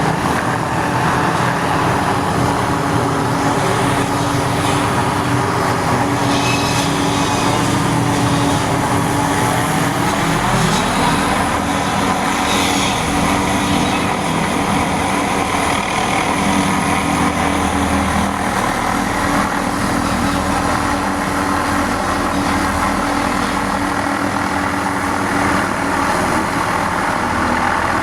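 Hughes 500D helicopter's turboshaft engine and rotors running steadily, with a brief shift in pitch about ten seconds in. It is likely also carrying its suspended aerial tree-trimming saw.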